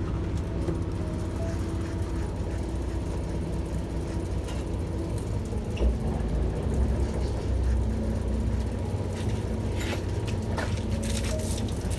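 Boat engine running with a steady low rumble, with a few short clicks and knocks over it.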